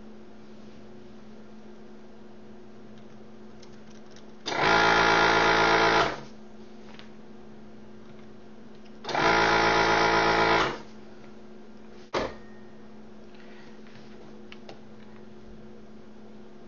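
Electric vacuum desoldering gun's pump buzzing twice, about 1.5 s each, as it sucks molten solder off the display pins, then a sharp click. A faint steady hum lies underneath.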